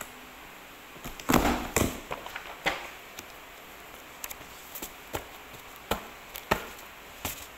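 Desk paper punch pressed down through a thick stack of papers, a loud crunching knock about a second in. It is followed by paper rustling and a series of single sharp knocks as the stack is tapped upright on the desk to square it.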